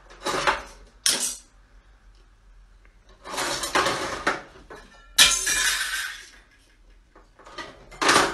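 Several separate crashes and clatters of hard objects breaking, about five in all, with quieter gaps between them.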